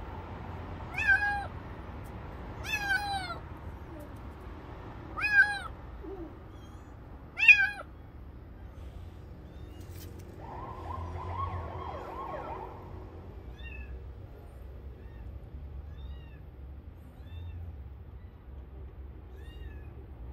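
Young stray tabby kitten crying with loud, high meows, five in the first eight seconds, each falling in pitch at the end. Then come fainter, shorter cries every second or two.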